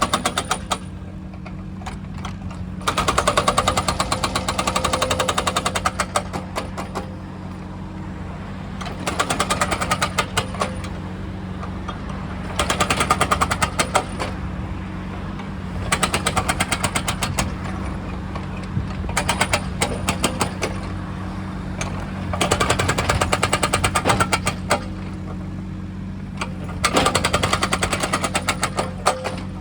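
Excavator-mounted hydraulic breaker hammering in repeated bursts of rapid blows, each burst lasting a couple of seconds, about eight in all, over the excavator's steady diesel engine hum.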